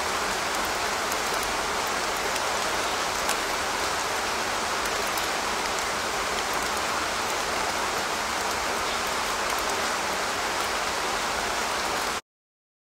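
iOS 15 Background Sounds 'Rain' recording playing back: steady rain noise with scattered faint drop ticks, cutting off abruptly near the end.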